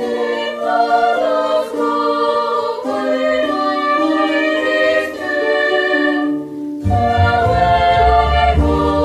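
Women's choir singing sustained chords with a small string ensemble; a low bass part comes in about seven seconds in.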